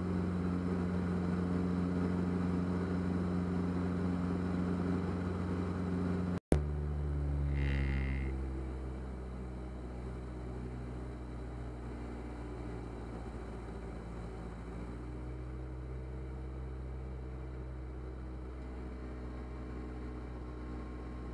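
Diamond DA40's piston engine and propeller droning steadily, heard inside the cockpit. About six seconds in there is a sharp break, after which the engine note falls in pitch and grows quieter. A short high beep follows about a second later.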